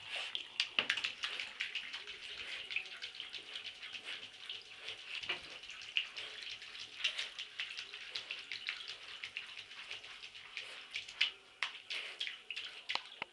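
A wet dog rolling and wriggling on the floor of an empty bathtub: wet fur rubbing and scrubbing against the tub, with irregular claw clicks and scrapes on the hard tub surface.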